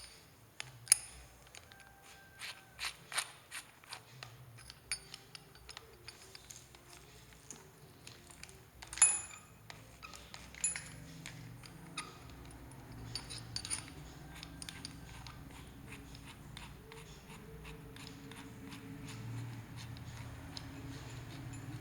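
Handling clicks and small knocks of a drill bit being fitted into an impact drill's chuck, a quick run of sharp clicks at first, one louder knock about nine seconds in, then a faint low hum in the later part.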